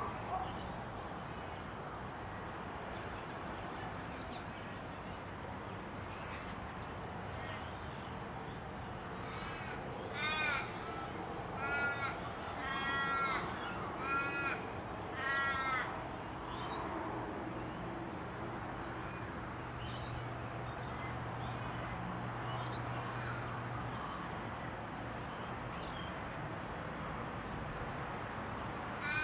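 A crow cawing: five caws in a row, about one a second, starting some ten seconds in, over a steady low background hum with faint distant bird chirps.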